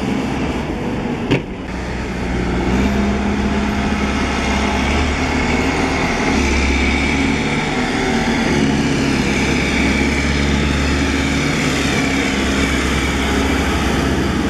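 Case 590 Super M loader backhoe's diesel engine running, its engine note shifting up and down. There is a sharp click about a second in, then the engine gets louder and stays there.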